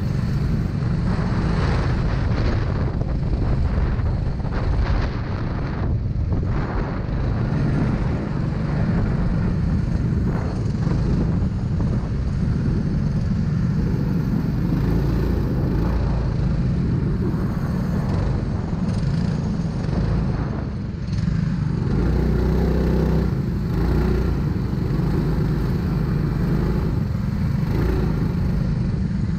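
Racing kart engine running steadily at low speed, heard from the driver's seat, with other karts' engines close by.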